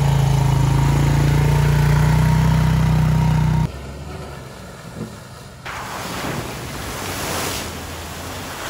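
An ATV engine running steadily close by, cut off abruptly about three and a half seconds in. Then a Jeep Wrangler drives through a muddy puddle, its tyres splashing water and mud in a growing wash of noise.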